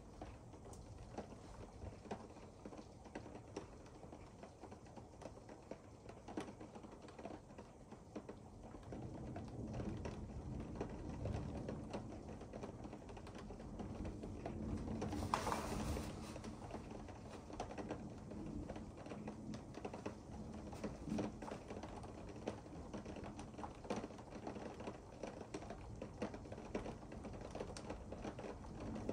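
Rain pattering on a window pane: a dense run of small ticks that grows heavier about a third of the way in, with a brief louder rush of noise about halfway.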